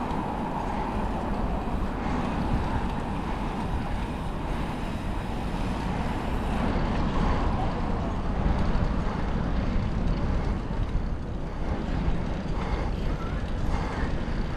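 Wind buffeting the microphone of a moving bicycle, a steady low rush of air.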